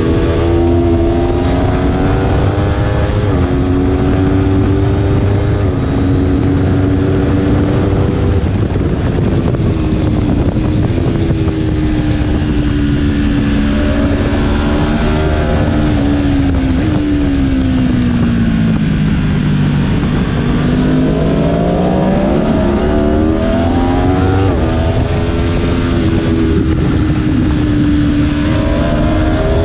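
Aprilia Tuono V4 1100's V4 engine at track speed, heard onboard over wind rush. The engine note holds high with small rises and falls, sinks to its lowest about twenty seconds in as the bike slows through a corner, then climbs again as it accelerates out.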